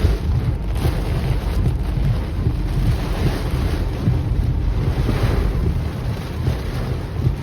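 Strong wind buffeting a car driving through a thunderstorm, with heavy wind rumble on the microphone.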